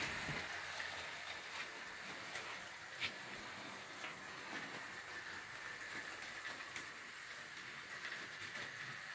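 Bachmann Thomas model locomotive running on the track, its small electric motor giving a steady faint whine, with light irregular clicks of the wheels over the rail joints, one sharper click about three seconds in.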